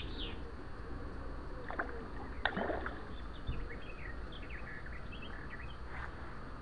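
Small birds chirping in the background over a steady low rumble, with one brief sharp sound about two and a half seconds in.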